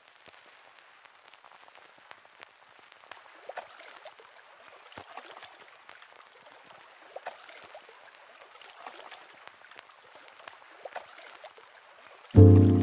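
Faint crackle: scattered ticks and small pops over a soft hiss. Near the end, loud music with a deep bass line starts suddenly.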